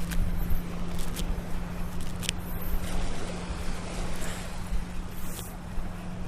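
Ocean surf washing on a sandy shore, with a steady low hum underneath and three sharp clicks in the first half.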